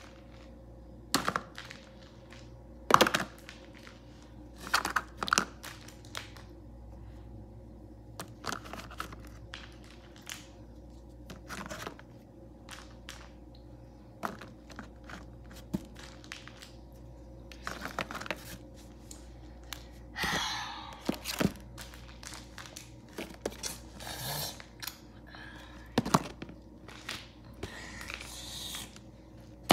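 Plastic toy animals and dinosaurs being handled in a cardboard box: scattered clacks and knocks as they are picked up and set down, with a few short stretches of rustling in the second half.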